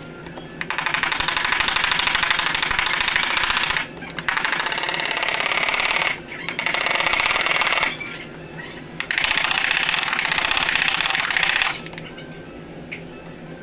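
A handheld power tool running in four bursts of a few seconds each, with a fast, even buzz, as used for bodywork on a car panel.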